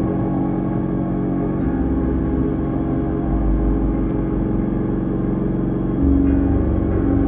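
Ambient electronic music from a Korg Minilogue analog synthesizer played live: held droning tones over a deep bass note that changes pitch every second or two.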